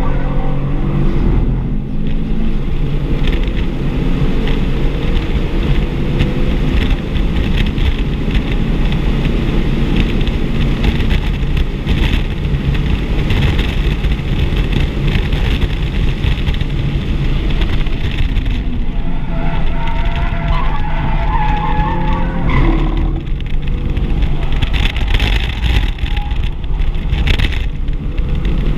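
2024 Audi RS3's turbocharged 2.5-litre five-cylinder engine heard from inside the cabin under hard acceleration, its pitch climbing as the car reaches about 134 mph, over heavy wind and road noise. About two-thirds through, the tyres squeal briefly as the car brakes hard toward a corner.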